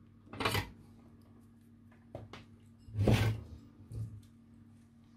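Objects being handled on a workbench: a few short scrapes and clunks, the loudest about three seconds in, with two light clicks just before it. A faint steady hum runs underneath.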